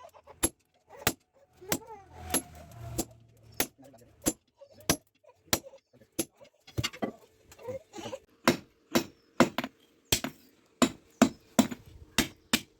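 Blacksmith's hammer striking steel on an anvil, a long run of sharp ringing blows, about one to two a second and quicker and more even in the second half: leaf-spring steel being forged into a wood-chopping blade.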